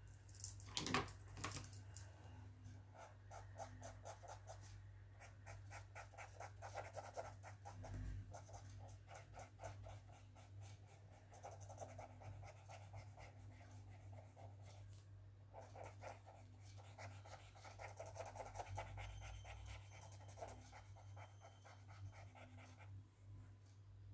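Black marker pen scratching across sketchbook paper in runs of quick back-and-forth strokes as it colours in, faint, with a sharper knock about a second in.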